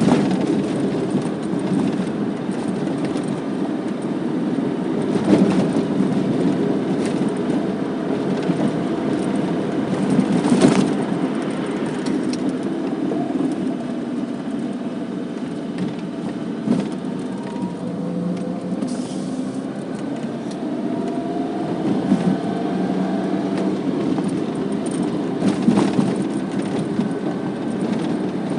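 Car cabin noise while driving: steady engine and tyre rumble with a few sharp knocks from the road. In the second half a faint engine tone slowly rises in pitch.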